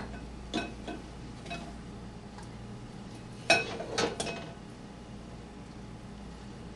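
Kitchenware clinking and knocking as a strainer and pot are handled: a few light clinks in the first second and a half, then a sharper group of three knocks around three and a half to four seconds in.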